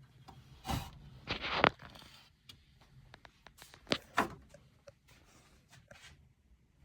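A few sharp clicks and knocks with short scraping, rustling noises, the loudest about one and a half seconds in, like objects being handled.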